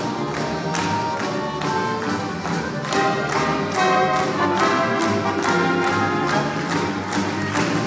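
Live instrumental ensemble playing brisk dance music with a quick, steady beat of about three beats a second.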